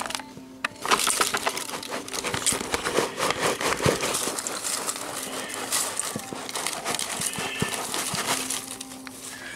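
Shredded paper rustling and crinkling as it is tipped from a cardboard carton into a stainless steel bowl, a dense run of crackly clicks.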